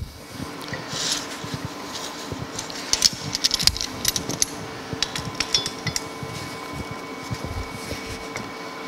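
Steel clinking and clicking as a square steel-tube leg and a metal clamp are handled and set against a steel plate, a cluster of quick knocks about three to six seconds in. A steady hum runs underneath.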